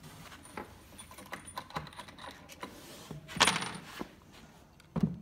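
Loose steel screws clinking against each other and on the wooden panel as they are handled, in scattered light clicks, with a short rattle about three and a half seconds in and a dull knock near the end.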